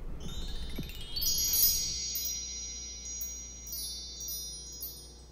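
Shimmering chime transition sound effect: a quick rising glissando of bell-like tones over about a second, then high ringing tones with twinkling flickers that fade away.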